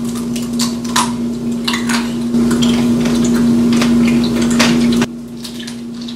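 Tanghulu being eaten: the hard, glassy sugar shell on candied fruit cracking and crunching between the teeth in a quick run of sharp crackles, over a steady low hum. The crackling stops about five seconds in.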